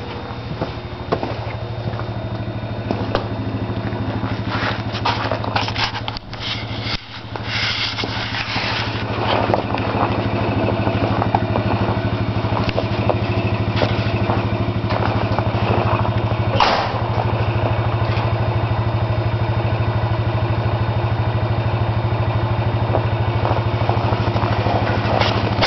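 A 1983 Jeep J-10's AMC 360 V-8 idling steadily, heard at the tailpipe just after a cold start. The engine had sat unrun since September.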